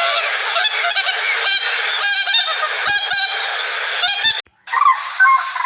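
A flock of birds calling loudly, many overlapping honking calls at once. It breaks off suddenly about four and a half seconds in, and a different bird's calls start right after.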